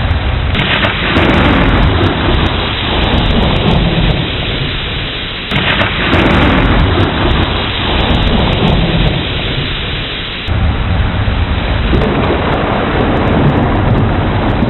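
Thunderstorm: steady heavy rain under rolling thunder. The rumble swells suddenly three times, about half a second in, about five and a half seconds in and about ten and a half seconds in, and dies away over a few seconds each time.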